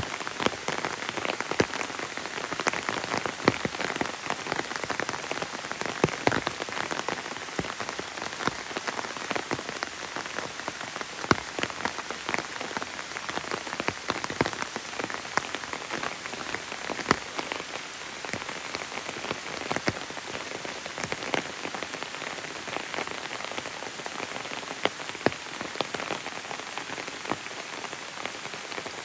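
Steady rain, with many sharp, irregular drop hits close by, pattering on an umbrella held overhead.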